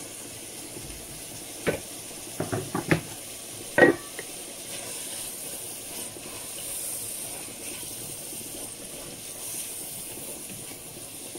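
Okra stew sizzling steadily in a pan on the heat, with a few sharp knocks of a stirring utensil against the pan, the loudest about four seconds in.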